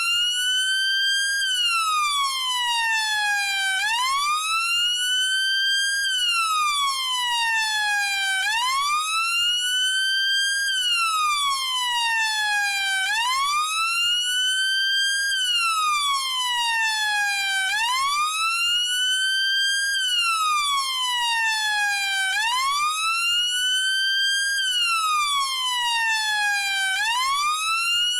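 UK police siren sounding a slow wail, over and over. The pitch climbs quickly, then sinks slowly, about once every four and a half seconds.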